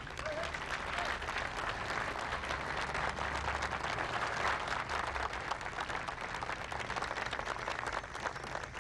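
A large crowd applauding, dense hand-clapping that thins out near the end.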